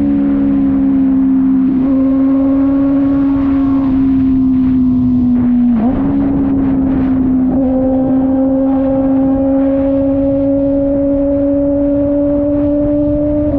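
Kove 450rr's single-cylinder engine running at a steady cruise while riding. There are pitch steps about 2, 6 and 7.5 seconds in that sound like gear changes, and the note climbs slowly between them.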